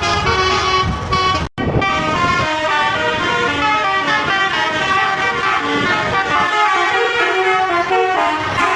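Telolet horns of two buses, multi-tone air horns playing quick stepping tunes over each other. The sound cuts out for a moment about one and a half seconds in.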